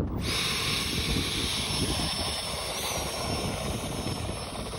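Electric ducted fans of an RC hovercraft running: a high, steady whine over an airy rush. The whine rises briefly in pitch about three seconds in, then settles, and the sound fades slightly as the craft drives off.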